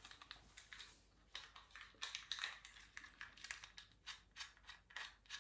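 A run of faint, irregular plastic clicks and taps from a plastic drywall electrical box being handled and worked with the fingers.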